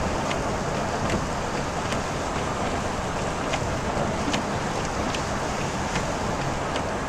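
Steady road and rain noise inside a car on a wet freeway: tyres hissing on the wet pavement, with scattered sharp ticks of raindrops hitting the windshield.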